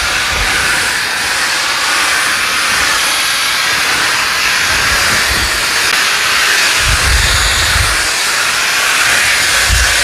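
Hoover Steam Complete Pet steam cleaner hissing steadily as it puts out a lot of steam, with a few low thumps in the second half.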